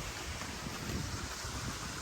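Wind buffeting the microphone in low, uneven gusts over a steady rushing hiss.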